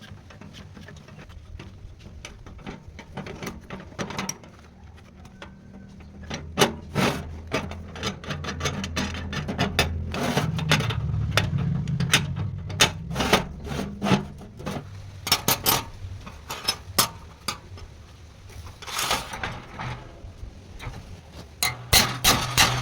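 Workshop metalworking sounds: irregular knocks and clicks of metal parts being handled and struck, over a low hum in the middle, with rapid hammer-like blows starting near the end.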